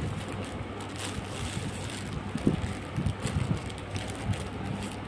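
Clear plastic wrapping crinkling and rustling in short, irregular crackles as it is handled, over a steady low hum.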